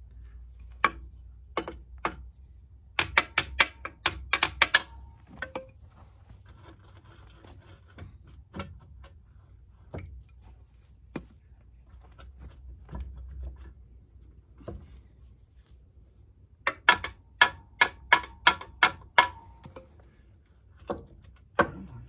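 Hammer blows on a steel punch, driving a pivot pin out of a backhoe's bucket linkage: sharp metal-on-metal strikes in two quick runs of about five a second, one a few seconds in and one near the end, with single knocks between.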